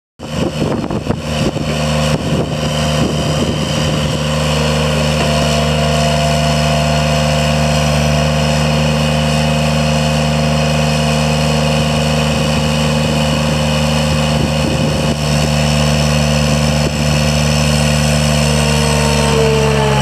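Bobcat S70 skid-steer loader's small three-cylinder Kubota diesel running steadily while the loader arms raise and lower the bucket and the machine drives about. A thin whine sits over the engine and drops in pitch near the end, and a few clanks sound in the first seconds.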